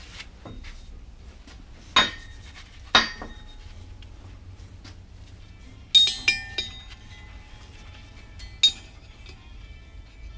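Hammer blows on an old bearing race used as a driver, seating a new steel bearing race into a BMW E36 M3 differential housing: about six sharp metallic strikes, each with a brief ringing, spaced unevenly with a quick cluster of three about six seconds in.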